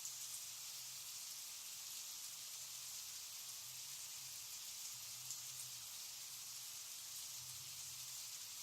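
Faint, steady hiss with a soft low hum underneath that swells slightly now and then.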